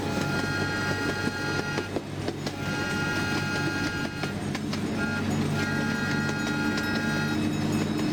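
Miniature train's horn sounding four blasts, long, long, short, long: the standard signal for approaching a grade crossing. Under it the train's engine runs steadily.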